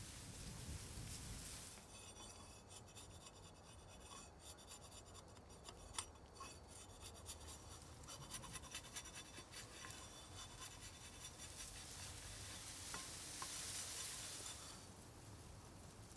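Large chef's knife blade faintly scraping and shaving along a wooden stick, with small clicks and one sharp click about six seconds in.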